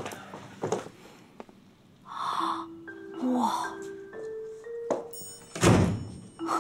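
An apartment door swings shut with a heavy thunk near the end. Light background music of short, marimba-like notes starts about halfway in.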